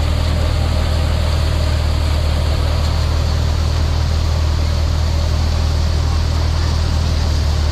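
Paddy thresher machine running steadily: a constant low hum under a dense, even rushing noise.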